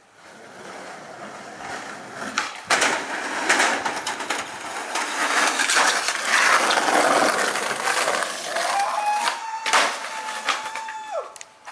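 Skateboard wheels rolling over concrete pavement, with sharp clacks of the board striking the ground, loudest about two and a half to four seconds in and again near ten seconds. A thin steady whine joins in over the last three seconds.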